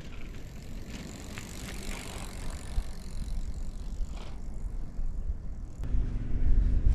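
A bicycle ridden past under a steady low wind rumble on the microphone. About six seconds in the rumble grows louder as the rider walks up close.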